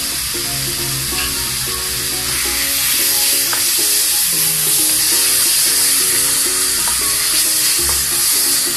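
Ground pork sizzling steadily as it fries in hot oil in a pan, with a few light clicks. Background music of short repeating notes plays along.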